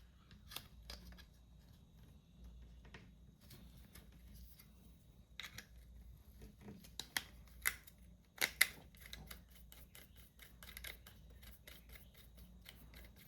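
Faint, scattered clicks and taps of small camera mount parts being handled, with a cluster of sharper clicks around the middle.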